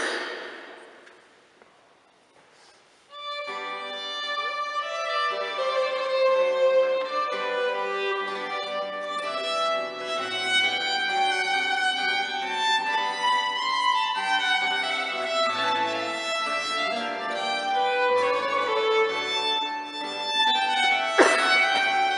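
Early-music ensemble performing: a sharp percussive strike rings and fades, then about three seconds in bowed string instruments enter, playing a melody in several parts. Another sharp strike sounds near the end.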